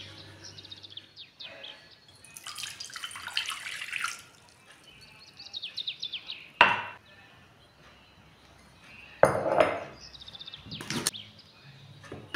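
Warm water poured into a glass mixing bowl for pizza dough, followed by three sharp knocks and clinks against the glass as yeast and a spoonful of sugar go in. Birds chirp in short falling notes throughout.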